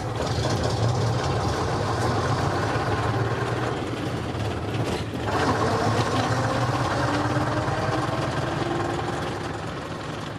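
A vintage single-deck bus's engine running under way, heard from inside the passenger saloon as a steady low drone over road and body noise. There is a brief clunk about five seconds in, then a faint whine that rises in pitch.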